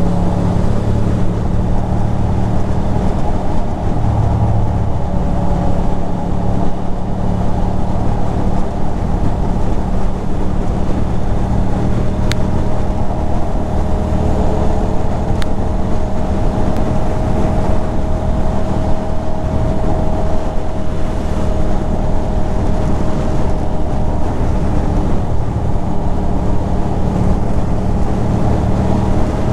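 Ducati Monster 620's air-cooled L-twin engine running at a steady cruise, heard over wind noise on the microphone. Its pitch holds nearly even, edging up slightly over the stretch.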